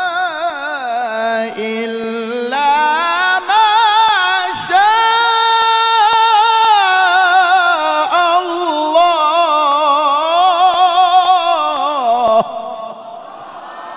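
A man chanting Qur'an recitation in the melodic tilawah style, drawing out one long vowel with rapid wavering ornaments. The line climbs to a high held note in the middle, then falls back and cuts off sharply near the end, leaving a faint haze of room sound.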